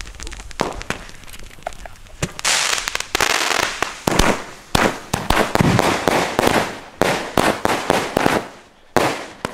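A 16-shot firework battery (cake) firing: after a few light pops, a quick run of launch shots and bursts begins about two and a half seconds in, many trailing off into crackling, and it dies away near the end.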